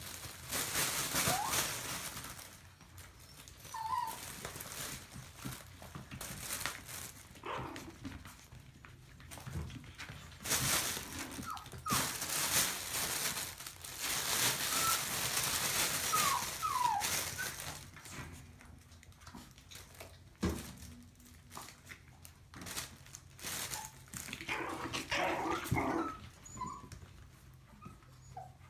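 Maltese puppies giving short high yips and whimpers, with loud rustling of a nylon play tunnel in several stretches as they push through it.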